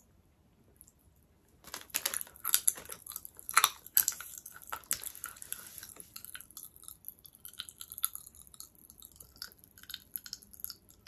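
Cola popping candy crackling in the mouth: a dense rapid snapping starts about two seconds in and thins to scattered pops after about six seconds.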